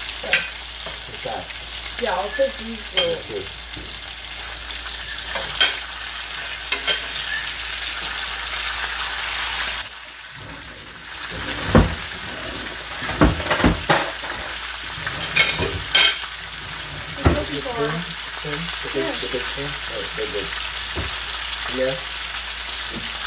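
Meat sizzling and frying in hot oil in a cast iron skillet, with a few sharp knocks and clicks against the pan. About ten seconds in, the sizzle drops suddenly for a moment, then picks back up.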